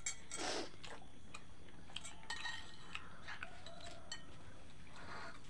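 Metal spoon clinking and scraping lightly against a ceramic plate while scooping up food, a scatter of small, separate clicks.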